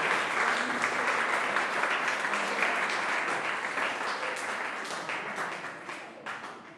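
Applause: many hands clapping in a dense patter that thins out and fades away over the last couple of seconds.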